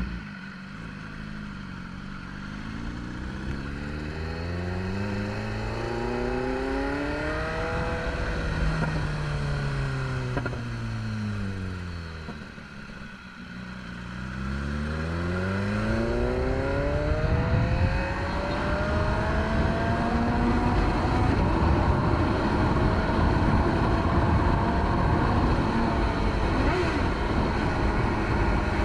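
BMW S1000RR's inline-four engine revving under throttle. The revs climb over several seconds, fall away to a low point about halfway through, then climb again and stay high and loud for the last ten seconds.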